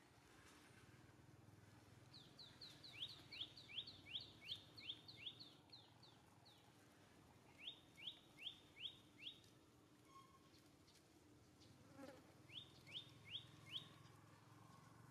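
A small bird calling faintly, three runs of quick, high whistled notes at about four a second: a long run of about a dozen, then two shorter runs of four or five.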